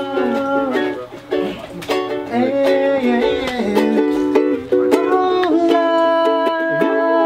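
Two ukuleles strummed together in a steady chord rhythm, with a wordless sung vocal line over them that holds a long note in the second half.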